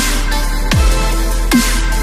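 Electronic dubstep-style background music with a deep kick drum that drops in pitch, hitting about every 0.8 seconds over sustained synth tones.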